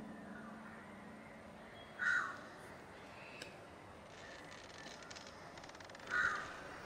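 A crow cawing twice, each a short call, about four seconds apart, over faint background hiss.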